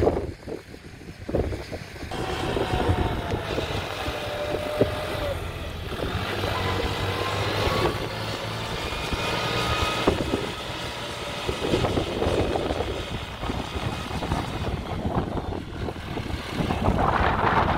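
Farm tractor's diesel engine running steadily under load as it drags a disc harrow through wet, muddy soil, its pitch wavering slightly.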